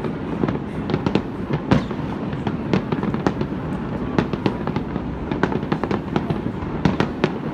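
Fireworks display: a continuous stream of sharp bangs and crackles at irregular intervals, several a second, over a steady background din.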